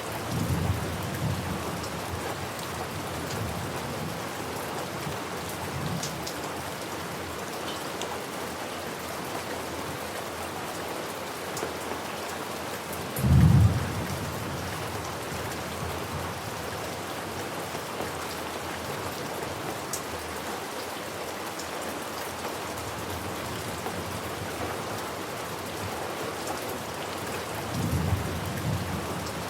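Steady rain falling, with thunder rumbling low just after the start and again near the end. About halfway through comes one short, loud clap of thunder.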